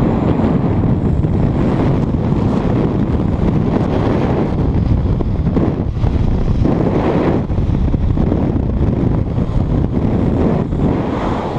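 Strong wind buffeting a body-worn action camera's microphone during a fast cable-controlled base-jump fall, rising and falling in gusts.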